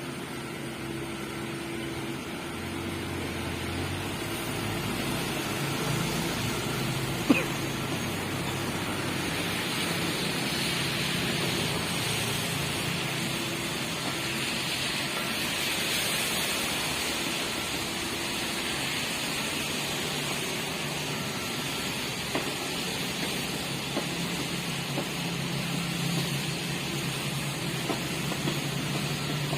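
Diesel engines of a dump truck and a mini excavator running steadily while soil and concrete rubble is unloaded. A hissing rush swells in the middle, and there is one sharp knock about seven seconds in, with a few lighter knocks near the end.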